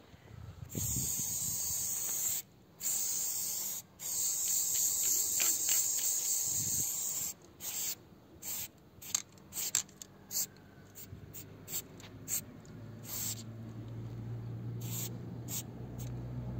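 Aerosol spray paint can hissing: three long sprays in the first seven seconds, then a run of short quick bursts.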